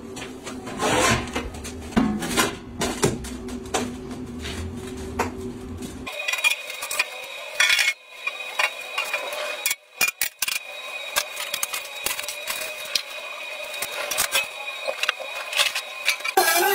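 Sheet-metal panels and a steel scooter frame clanking and scraping as they are handled and fitted, with many sharp metallic knocks. A low hum in the first six seconds stops abruptly, and a steady high tone runs on after it.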